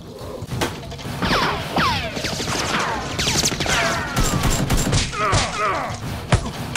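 Dubbed-in gunfire sound effects: a string of shots, many of them trailed by falling whistling tones.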